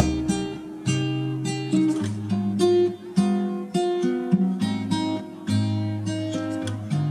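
Background music on acoustic guitar, with strummed and picked chords, a new one struck about every half second.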